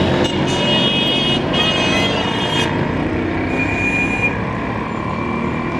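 Street traffic: the engines of a passing bus and smaller motor vehicles running, with a vehicle horn tooting twice in the first three seconds, each toot about a second long, and a thinner, higher horn note a little past the middle.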